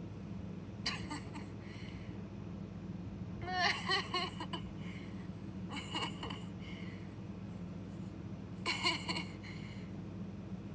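A girl's short, high-pitched giggle, repeated about four times a few seconds apart, over a steady low hum.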